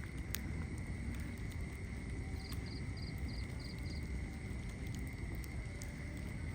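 Wood fire burning in a fireplace: a steady low rumble with sparse sharp crackles and pops. In the middle, a quick run of six short, high chirps.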